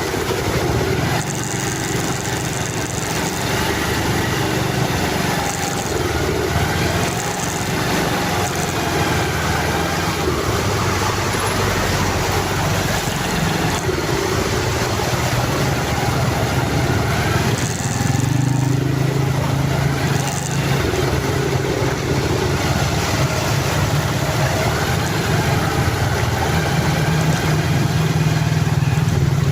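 A motor vehicle engine running steadily, under a constant noisy hiss of road or water noise.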